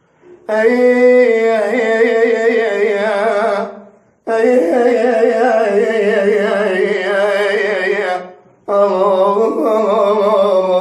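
A solo voice singing unaccompanied in Iraqi rural style, drawing out three long wordless melismatic phrases with wavering ornaments and a short breath between each.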